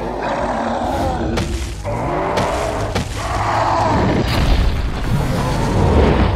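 Background music with deep booming sound effects over it.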